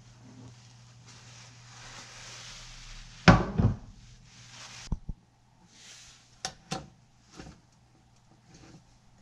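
Kitchen handling noises: a soft hiss, then a loud clatter about three seconds in, followed by a few sharp clicks and lighter knocks.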